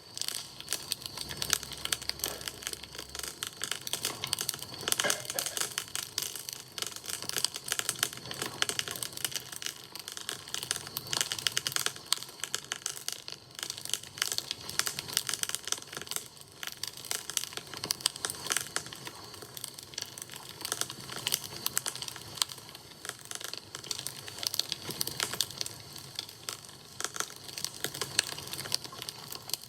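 Wood campfire crackling, with dense, irregular pops and snaps.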